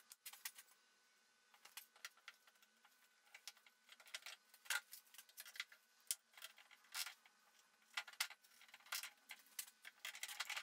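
One-handed plastic bar clamps being set along a glue-up and squeezed tight: scattered quiet clicks and rattles of the clamp triggers and bars against the aluminium frame.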